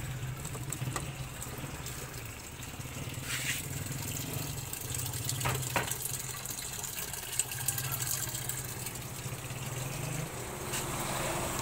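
Water pouring from the inlet into the tub of a Midea top-load washing machine as it fills on a test run after a controller board replacement, over a steady low hum that stops near the end, with a few faint clicks.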